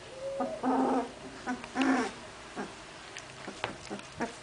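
Litter of Hungarian vizsla puppies play-fighting, making short growls and yips, with two louder growling calls about half a second and two seconds in.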